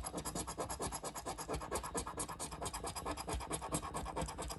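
A coin scraping the coating off a paper scratch-off lottery ticket in rapid, evenly repeated back-and-forth strokes.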